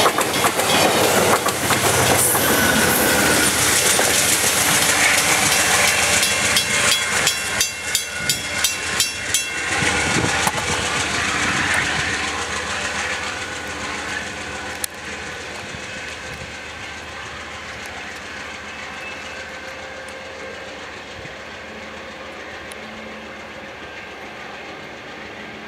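Amtrak Downeaster passenger train passing close at speed: a loud rush of steel wheels on rail with a quick run of clickety-clack as the last cars go by. The sound then fades steadily as the train, pushed by its P-42 diesel locomotive on the rear, draws away.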